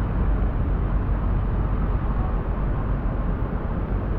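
Storm wind buffeting the camera microphone: a steady, loud low rumble.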